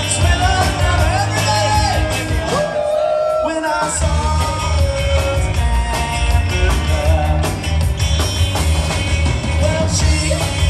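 Live rock band playing electric guitars, bass and drums, with a man singing lead. The bass cuts out briefly about three seconds in.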